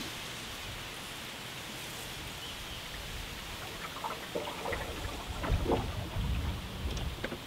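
Paddle strokes from a cedar strip canoe: a soft steady hiss, then from about halfway water splashing and dripping off the paddle, with a few low thumps.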